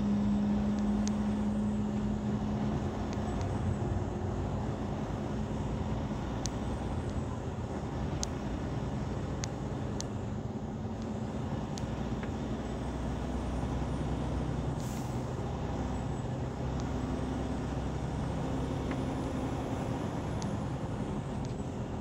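A semi-truck's engine and road noise in a steady drone from the cab, with a humming tone that fades out over the first few seconds and a few faint clicks.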